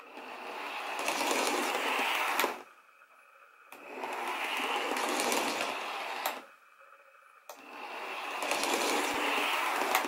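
Tenshodo HO-scale model of the JNR ED29 electric locomotive running under power, its small motor and drive whirring. This comes in three stretches, each building up over about two seconds and then cutting off sharply.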